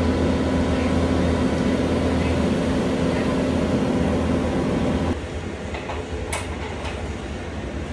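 An engine running steadily with a low hum, which drops off suddenly about five seconds in. A quieter rumble follows, with a few sharp metallic clicks as a load strap's fitting is handled at the trailer's wall track.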